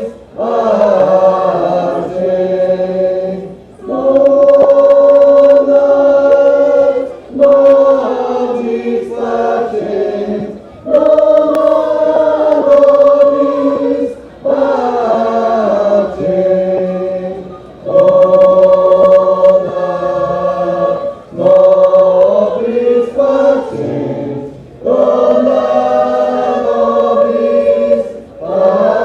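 A choir singing, holding chords in phrases about three and a half seconds long with short breaks between them.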